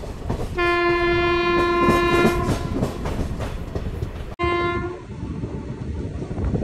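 Moving passenger train's wheels rumbling and clattering on the track, heard from an open coach doorway. A train horn sounds steadily for about two seconds near the start, and briefly again a little after four seconds in.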